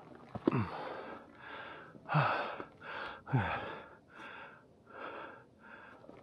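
A hiker breathing hard in quick, regular breaths, about one every three-quarters of a second, from the effort of climbing a steep, rocky trail.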